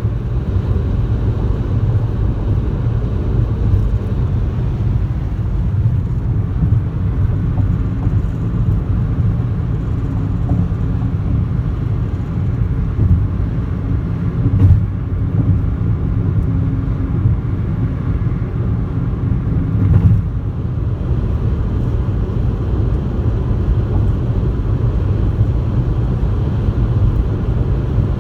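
Steady low road and engine rumble inside a moving car's cabin, with two brief bumps about halfway through.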